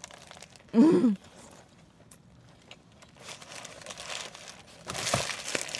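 Close-miked eating sounds: a short hum of the voice about a second in, then chewing a Whopper burger and the crinkling of its paper wrapper, louder near the end.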